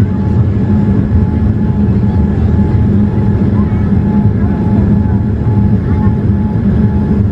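Steady roar of engines and rushing air heard inside the cabin of a Boeing 787-8 Dreamliner on its descent to land, with a faint thin tone that comes and goes above it.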